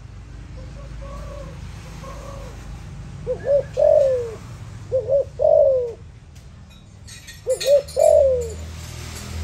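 Spotted dove cooing: three phrases in the second half, each two short rising notes followed by a longer falling coo, after a few softer coos near the start.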